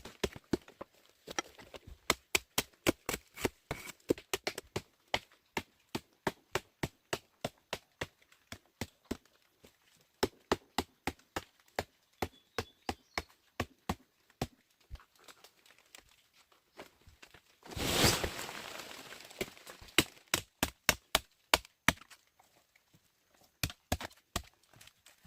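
A rapid series of sharp knocks or clicks, about three a second. A louder, longer crash about eighteen seconds in fades over a couple of seconds.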